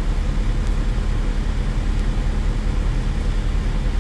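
Volvo L90G wheel loader's diesel engine idling steadily with an even low pulsing, heard from inside the cab.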